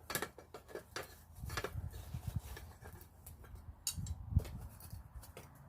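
Scattered light clinks and scrapes, with a few dull knocks, as hot steel is set back into a charcoal forge fire and tongs work the coals around it.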